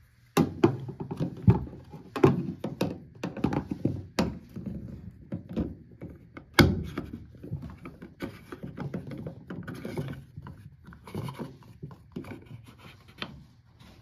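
Plastic drain pump filter of an LG washing machine being handled and pushed back into its housing: irregular knocks, clicks and scrapes of plastic on plastic, the sharpest knock about six and a half seconds in.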